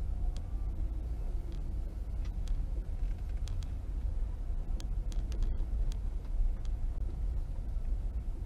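Car creeping along at walking pace, heard from inside the cabin: a steady low rumble of engine and tyres, with a few faint, irregular clicks.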